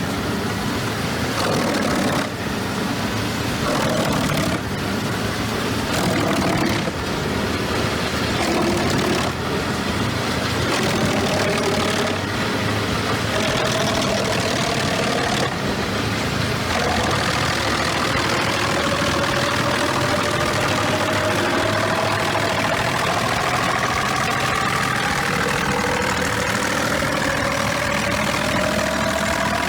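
Large engine-driven wood chipper running steadily, a constant engine hum under dense machine noise, with a whine that climbs slowly in pitch over the second half.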